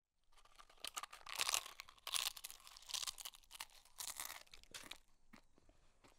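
A person chewing crunchy dry food close to the microphone, with loud crisp crunching for about four seconds that then dies down to a few faint clicks.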